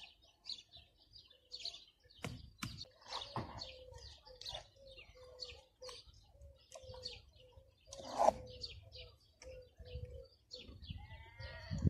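Small birds chirping and twittering throughout, with a few short knocks and scrapes of a mason's trowel on the stone blocks, the loudest near the end.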